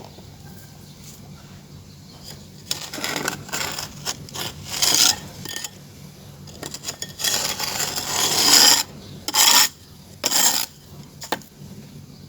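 Gritty scraping and rubbing of dry clay or sand by hand, in a run of uneven bursts, the longest and loudest about three quarters of the way through, then two short strokes and a brief last one.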